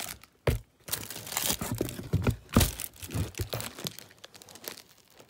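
Paper and cardboard packaging being handled and crinkled in the hands. The dense, irregular crackling and rustling is busiest in the first few seconds and thins out near the end.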